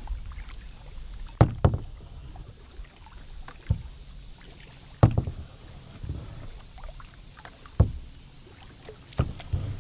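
Double-bladed paddle strokes on a plastic sit-on-top kayak: the blades dip and splash, with sharp knocks every one to three seconds over a steady low rumble.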